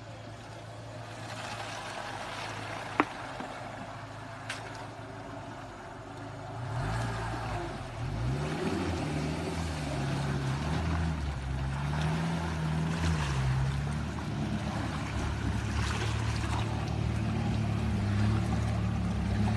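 Small 4x4 SUV's engine wading a deep stream with water up to the bonnet: a steady low idle at first, then from about seven seconds in the revs rise and fall repeatedly as it pushes through, over the rush and splash of water. A single sharp click about three seconds in.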